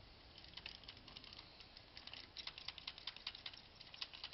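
Spinning fishing reel clicking irregularly while a hooked fish is played, a faint quick patter of small clicks that gets denser about halfway through.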